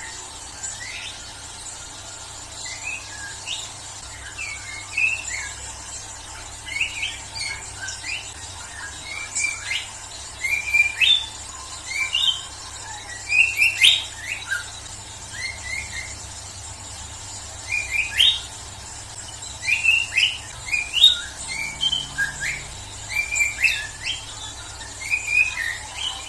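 Young white-rumped shama (murai batu) singing freely: short, quick whistled and chattering phrases, repeated every second or two in bunched bouts.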